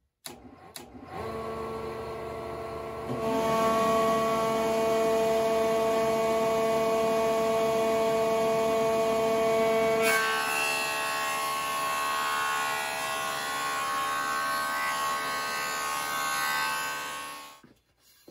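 A 6-inch Delta benchtop jointer starts up about a second in and runs with a steady whine as a board is fed across its freshly sharpened and reset knives. The sound gets louder about three seconds in, changes again about ten seconds in, and stops shortly before the end.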